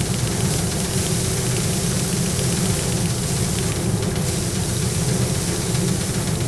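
Paddy threshing machine running steadily, its spinning drum stripping grain from rice bundles held against it, with a constant hum and a fine rattle of grain and straw.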